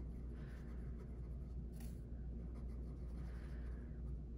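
Black marker drawing on paper: a few faint, soft scratchy strokes, with a brief tick about two seconds in, over a steady low hum.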